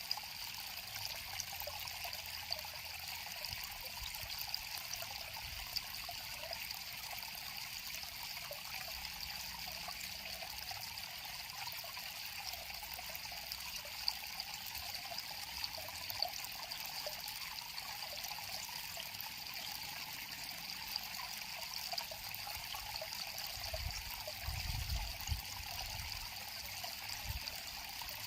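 River water flowing and trickling steadily over a shallow bed.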